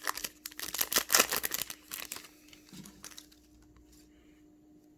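Plastic wrapper of a baseball card pack crinkling and tearing as it is opened, a dense crackle that stops a little over two seconds in.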